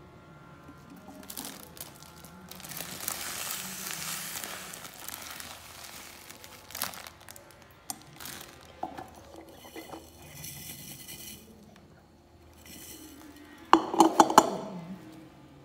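Sugar poured over mulberries in a glass jar, a rustling hiss with crinkling, then a quick cluster of knocks and clinks near the end as hands grip the glass jar.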